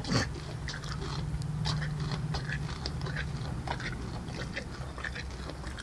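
Pony chewing, with irregular clicks and crunches from its teeth and a sharper knock near the start.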